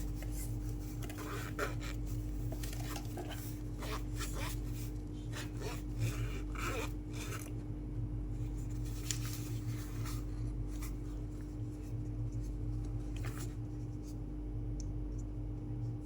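Packaging and product pieces being handled in an unboxing: scattered small clicks, taps and rubbing, busier in the first half, over a steady low hum.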